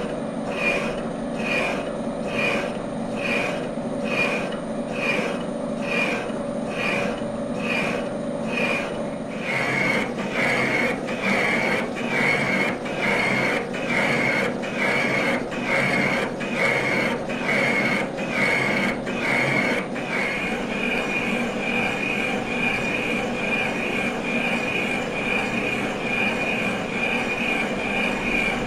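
Boring head on a Bridgeport milling machine cutting the bore of a cast locomotive cylinder, the cutter giving a high squeal. The squeal pulses regularly, about one and a half times a second, for most of the time, then becomes a steady unbroken squeal in the last third.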